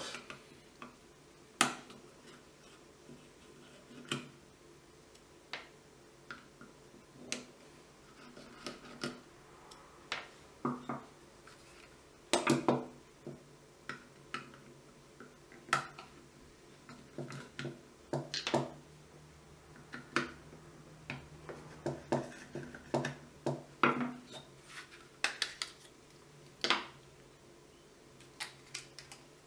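Screwdriver and metal parts of a Sig Sauer P226 pistol frame clicking and clinking as the grip screws are undone and the grip plates lifted off: irregular light metallic clicks and taps, several of them louder.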